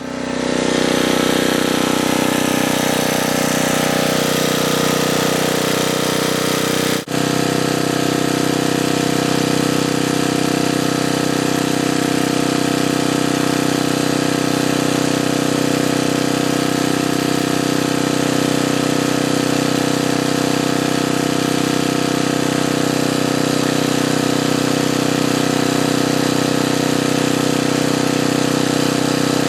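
An engine runs steadily at constant speed. It comes up to speed over the first second and drops out sharply for an instant about seven seconds in.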